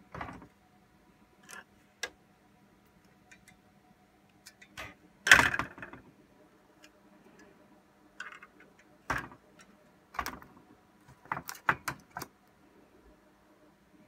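Scattered plastic and metal clicks and knocks as an HP Z620's second-CPU riser board with its memory modules is handled and seated in the workstation case. The loudest and longest knock comes about five seconds in, and a quick run of four clicks comes near the end.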